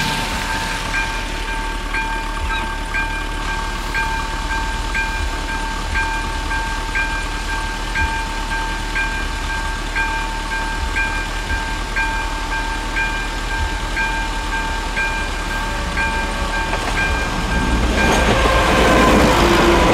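AŽD 71 level-crossing warning signal sounding its electronic bell: a steady ringing tone that pulses about once a second while the crossing is closed. About 18 seconds in, a passenger train's rumble rises as it reaches the crossing.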